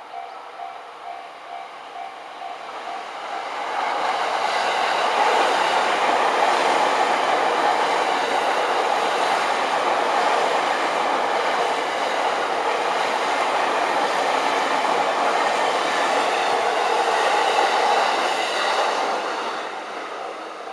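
Level-crossing warning bell ringing in a steady repeating beat, then a JR Yamanote Line electric commuter train passing over the crossing, building up about three to four seconds in, with its wheels running over the rails for some fifteen seconds. The train noise fades near the end and the bell comes through again.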